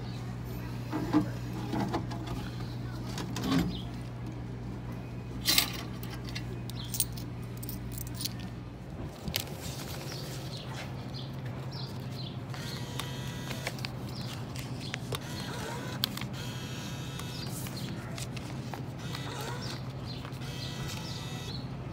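Steady hum of drink vending machines, which steps slightly higher about nine seconds in. Over it in the first few seconds come several clinks and knocks of coins and a plastic bottle being taken from the change cup and delivery bin, and near the end a dollar bill is fed into the bill acceptor.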